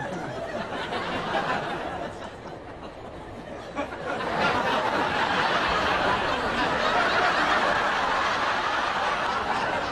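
Studio audience laughing, swelling to a louder wave of laughter about four seconds in.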